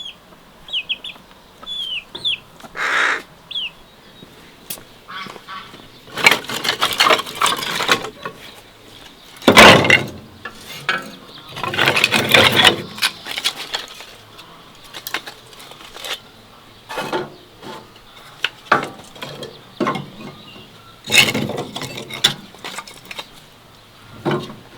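Domestic fowl calling in several loud bursts, with a few short high bird chirps in the first two seconds.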